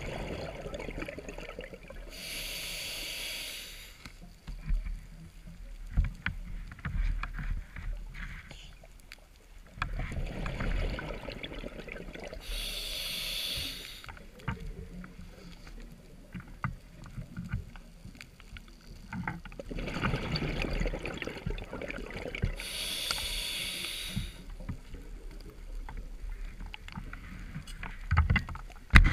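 Scuba diver breathing through a regulator underwater: a hiss about every ten seconds, three times, with low, irregular bubbling rumbles and small clicks between.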